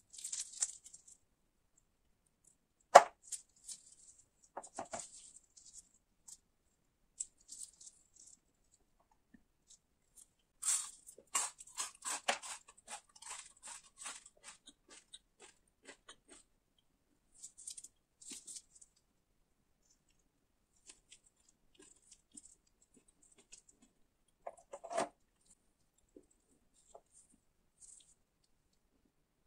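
Kellogg's Zucaritas cereal bar of frosted corn flakes and crisped rice crackling as it is broken apart by hand and then chewed. The crisp crunches come in scattered bursts, with a sharp tap about three seconds in and a dense run of crunching around the middle.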